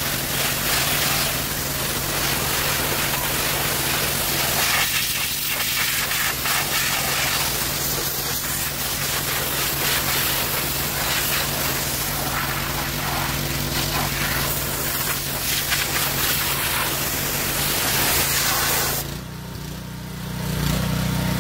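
Gas-engine pressure washer running, its spray jet hissing hard against a cast-aluminium automatic transmission case. About 19 seconds in the spray stops, leaving the washer's engine running on its own, louder again shortly after.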